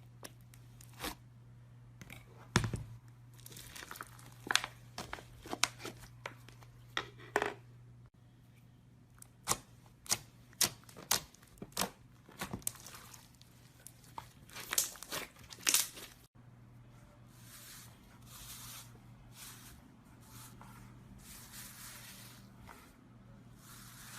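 Slime being worked by hand, giving a quick run of sharp pops and crackles, then softer squishing swishes over the last several seconds. A low steady hum lies underneath.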